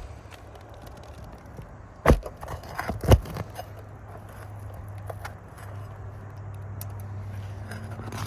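Roof snake working under asphalt shingles: two sharp metallic clicks about two and three seconds in, with lighter ticks and crackle as the sealed shingles are pried loose and torn. A low steady hum sits underneath, stronger in the second half.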